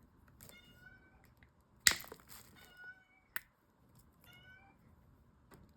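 A domestic cat meowing over and over, three short high-pitched calls about two seconds apart, from an agitated cat its owner calls angry. Two sharp clicks come about two and three and a half seconds in, the first the loudest sound here.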